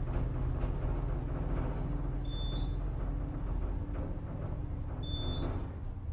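Elevator car running between floors: a steady low rumble and hum from the machinery, with a short high beep about every three seconds, twice. Near the end the rumble eases as the car slows.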